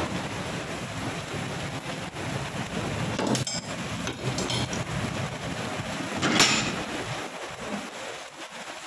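Heavy rain pouring down, a steady hiss, with a few knocks, the loudest about six seconds in.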